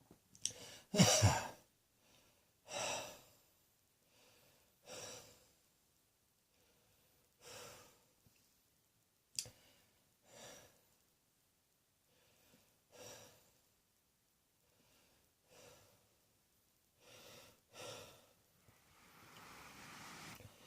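A person coughs once about a second in, then breathes quietly and audibly about every two and a half seconds, with one sharp click near the middle.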